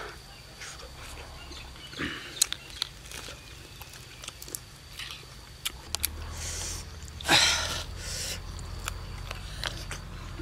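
Close-miked eating sounds: a man chewing and smacking his lips on roast duck, with short crackles and clicks as the meat is torn and dipped, and one louder rustling burst about seven seconds in.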